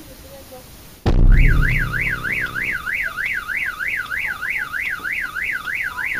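Car alarm going off: it starts abruptly with a loud burst about a second in, then wails up and down about two and a half times a second, with a lower droning tone under it at the start and again near the end.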